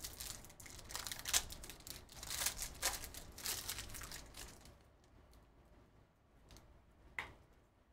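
Foil wrapper of a Panini Prizm trading-card pack being torn open and crinkled, a dense rustle for about the first four and a half seconds. Then quieter handling of the cards inside, with a single click near the end.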